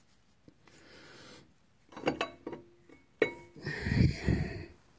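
A few sharp metallic clinks with short ringing, about two seconds in and again a second later, from handling a cam gear just removed from a Cummins ISX diesel's gear train, followed by a louder brief rustle of gloved hands working at the gear.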